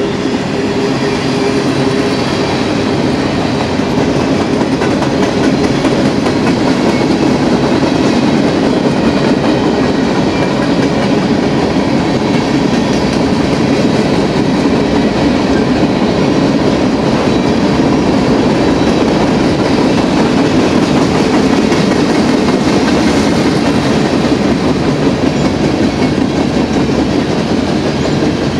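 Freight cars of a BNSF manifest train, tank cars and boxcars, rolling past close by: the steady, loud running noise of steel wheels on the rails.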